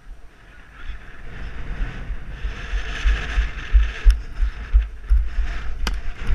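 Wind buffeting an action camera's microphone as the wearer sprints, heard as a rushing noise with deep irregular rumbles, ending in a sharp slap as a football is caught in both hands.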